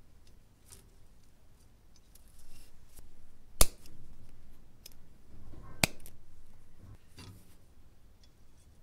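Thin wire snipped twice with the cutting jaws of combination pliers: two sharp snaps about two seconds apart, with light handling rustle around them.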